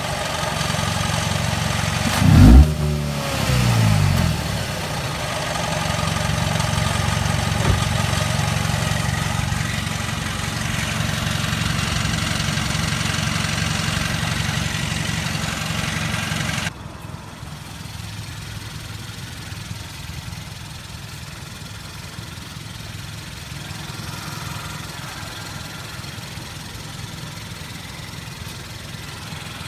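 Hyundai Veloster engine running, revved up and back down about two seconds in, then held at a steady idle. About two-thirds of the way through the sound abruptly becomes quieter and duller. The owner puts the car's noise and vibration down to a bad transmission and a cracked flywheel.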